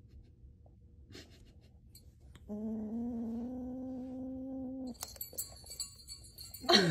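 Kitten growling with a ball toy held in its mouth, a single steady growl of about two and a half seconds: a kitten being territorial over a new toy. Light clicks follow, and near the end a short, loud sound falling in pitch cuts in.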